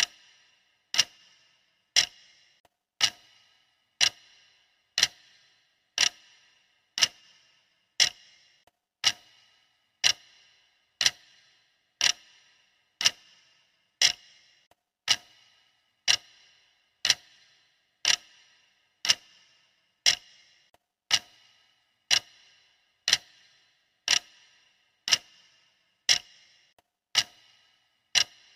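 Clock ticking steadily, one sharp tick a second, each with a brief metallic ring.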